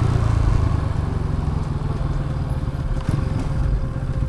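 Bajaj NS200's single-cylinder engine running as the motorcycle rides along, a little quieter after the throttle eases right at the start.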